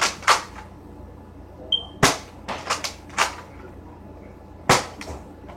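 A Nerf foam-dart blaster firing, a run of sharp clacks and snaps at uneven intervals, in a few quick clusters.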